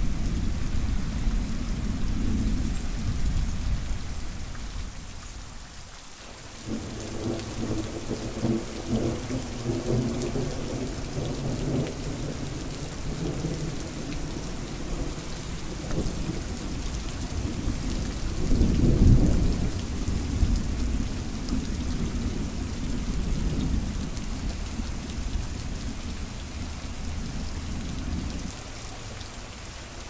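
Moderate thunderstorm: thunder rolling in long low rumbles over steady rain. The rumble fades briefly about five seconds in, then builds again and is loudest about two-thirds of the way through.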